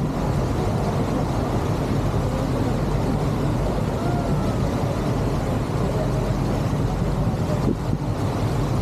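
A steady low mechanical rumble with a hiss of noise over it, like a running engine.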